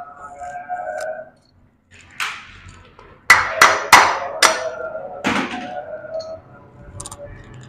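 Hero Splendor cylinder head being fitted onto the engine: a quick run of four sharp metal knocks about three seconds in, with softer clunks before and after as the head goes down over its dowels and gasket.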